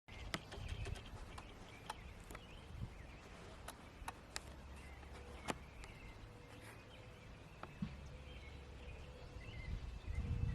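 Faint outdoor ambience: a low rumble with a faint steady hum, small birds chirping and scattered sharp clicks.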